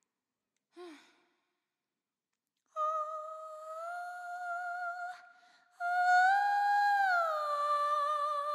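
A woman singing unaccompanied, without words. A short falling vocal slide comes about a second in, then two long held notes on an open vowel with vibrato; the second note swells upward briefly and falls back.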